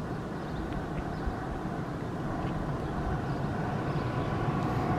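S-Bahn electric train approaching, its rumble with a faint steady whine growing steadily louder.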